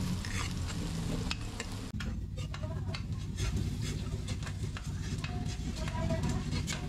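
Chopped onion and garlic sizzling in hot oil in a steel wok over high heat, with a metal spatula scraping and tapping against the pan as it is stirred. The sizzle falls off about two seconds in, leaving mostly the spatula strokes over a softer fry.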